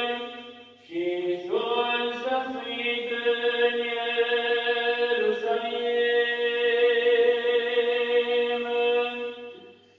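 Orthodox liturgical chant of the Gospel: a single voice intoning long held notes that step up and down in pitch. It breaks off briefly about a second in and fades out near the end.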